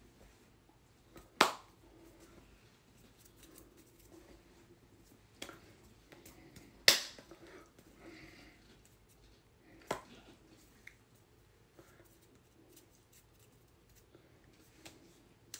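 Sharp slaps of hands meeting while signing, over quiet room tone. The loudest come about a second and a half in and about seven seconds in, and a smaller one near ten seconds.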